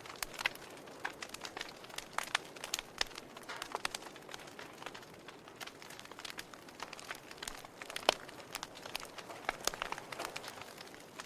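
Wood fire in a fireplace crackling, with irregular sharp pops over a soft hiss; the loudest pop comes about eight seconds in.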